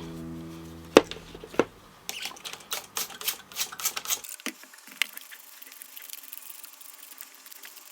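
Background music fades out, then a quick run of small clicks and taps from camera gear being handled, densest in the middle, thinning to a few faint ticks.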